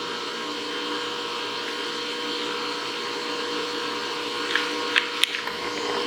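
Steady electrical and mechanical hum with a constant whine from the powered-up CNC knee mill. A few sharp clicks and taps come near the end.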